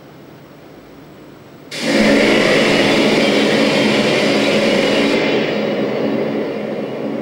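Loud wash of electronic noise from a live laptop set cutting in abruptly about two seconds in over a low hiss, with a steady low drone band under it. Its highest part drops away past the middle and it slowly eases off.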